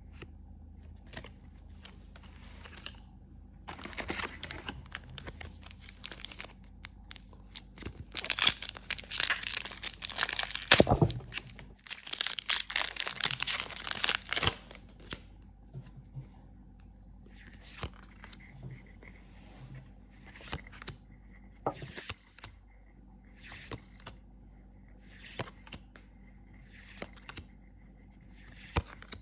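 A trading card booster pack's foil wrapper being torn open and crinkled, loud and crackling, strongest in the middle. Then come short swipes of cards sliding over one another as they are flipped through, one about every second.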